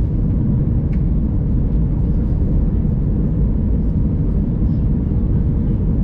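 Steady in-cabin noise of an Airbus A321 on final approach: engine and airflow rumble, heaviest in the low end, with a faint steady hum above it.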